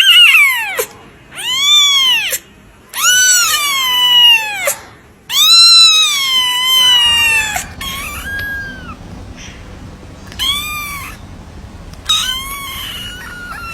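British shorthair kittens meowing: about seven high-pitched meows, each rising and then falling in pitch. The first four are loud and long, and the last of these is drawn out. The later ones are quieter and shorter, over a faint low rumble that comes in about halfway.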